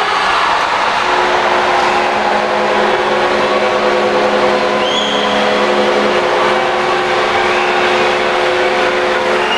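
Ice rink crowd cheering a goal. From about a second in, a steady chord of several held tones sounds over the noise, with a few short rising whistles about halfway through.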